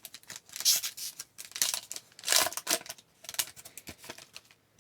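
A trading-card pack wrapper torn open in several short rips and crinkled, with softer handling sounds trailing off near the end.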